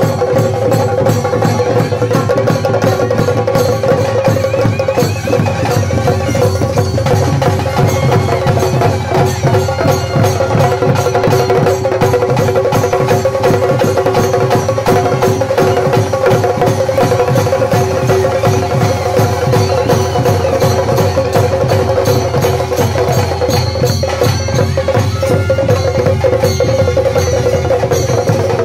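Traditional Tulu ritual music for a garadi kola: fast, dense drumming with a steady sustained drone note held throughout.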